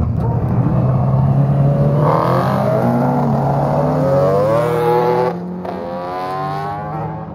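Road-racing motorcycle engine accelerating hard past, its pitch climbing as it revs. About five seconds in the sound cuts abruptly, and another motorcycle engine is heard revving up, quieter.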